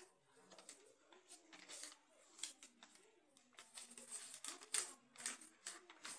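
Sheet of paper being folded and creased by hand: faint, irregular crackles and rustles, several small crinkles a second, a little busier in the second half.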